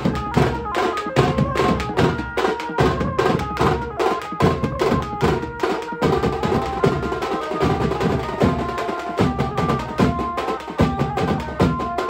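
Street banjo-party band playing: fast, dense drumming on stick-beaten drums under a melody played through horn loudspeakers, with the notes changing every beat or two.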